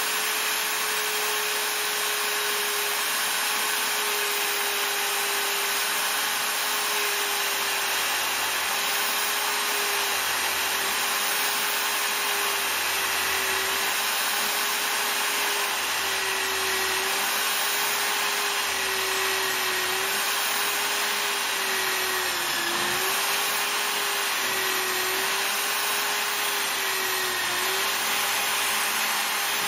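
Corded electric drill in a drill stand running steadily while peck drilling a 4 mm pilot hole through two clamped 10 mm aluminium plates. Its whine dips slightly every couple of seconds as the bit is fed into the metal and withdrawn to clear the swarf.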